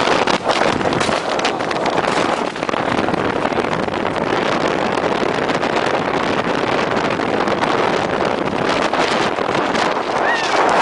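Wooden roller coaster train running at speed: a steady rumble and clatter of its wheels on the wooden track, mixed with wind buffeting the microphone.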